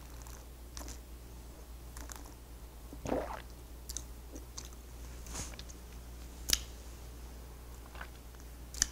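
A person's mouth sounds, picked up close by a lapel microphone, while chewing and tasting a sip of red wine: soft wet smacks and small clicks, a louder one about three seconds in and a sharp click about six and a half seconds in.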